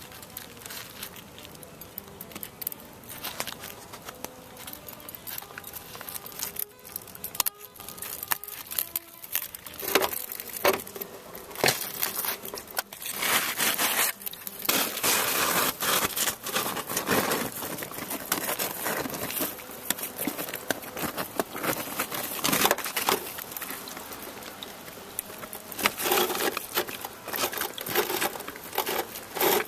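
Irregular crackling and crunching of brittle material being broken and handled, thickening from about ten seconds in. Faint guitar music fades out in the first few seconds.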